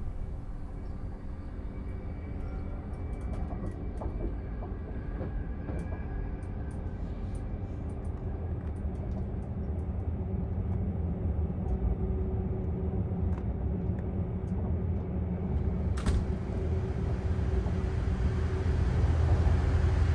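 Low, steady running rumble of a Caledonian Sleeper Mark 5 carriage on the rails, heard from inside the car, with scattered light ticks. It grows louder toward the end, and there is one sharp click about three-quarters of the way through.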